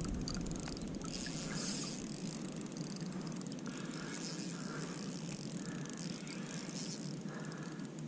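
Spinning fishing reel being wound in several short spells, each a brief whir, while a hooked fish is brought in on the line.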